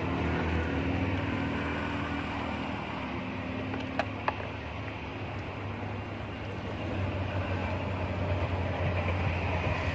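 A steady low engine hum, like a motor vehicle running nearby, with two short sharp clicks about four seconds in.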